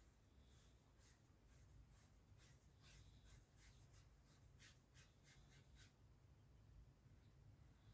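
Faint scratchy strokes of a paintbrush's bristles on paper, about three a second, pausing about six seconds in.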